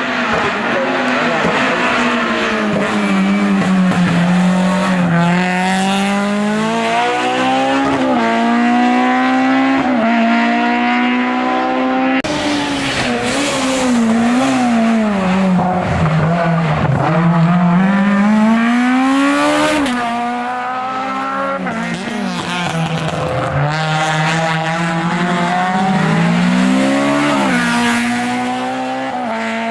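Hillclimb race car engine running hard at high revs, its pitch climbing and dropping back again and again as it shifts gear and comes on and off the throttle. The engine note changes abruptly about twelve seconds in.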